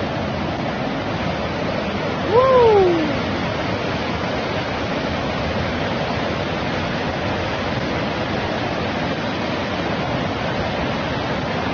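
Floodwater rushing steadily in a loud, even roar. About two and a half seconds in, a single short call rises and then falls in pitch over it.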